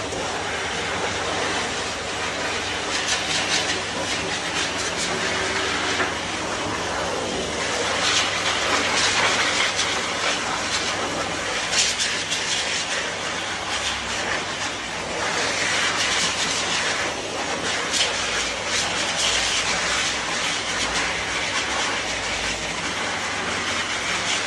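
Professional high-velocity pet dryer (turbine blower) running steadily, blowing air through its hose onto a dog's wet coat. The rush of air swells and changes in tone again and again as the nozzle is moved over and into the fur, over a steady motor hum.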